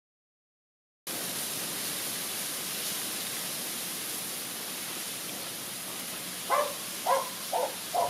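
Steady hiss of outdoor background noise, starting about a second in. Near the end come four short calls in quick succession, about half a second apart.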